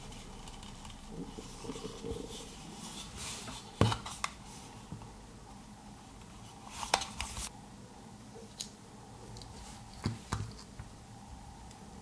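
Hands handling a plastic remote control case: scattered light taps and clicks as it is turned over and put down, the sharpest about four and seven seconds in, and two more close together about ten seconds in.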